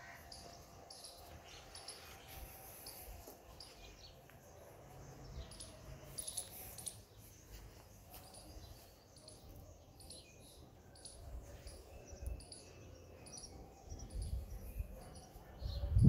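Small birds chirping, many short high chirps repeated over and over, over a faint low rumble.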